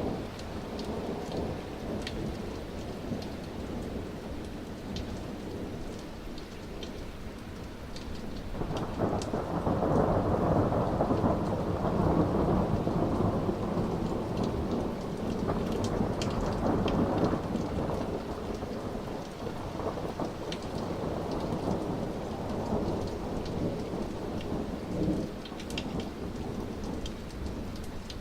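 Rolling thunder from a storm overhead. A long rumble swells about a third of the way in, holds for around ten seconds, then slowly fades, over a steady patter of rain and drips.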